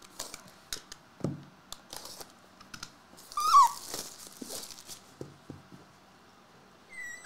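Rustling, crinkling and light knocks from a trading-card box and its cardboard packs being handled. There are two short squeaks that fall in pitch, the louder one about three and a half seconds in and another at the end.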